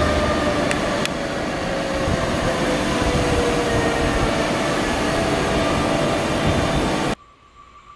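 A DB class 146.5 electric locomotive hauls a double-deck Intercity train slowly into a station. It makes a steady rumble with a thin electric whine that falls slowly in pitch as the train slows. The sound cuts off suddenly about seven seconds in.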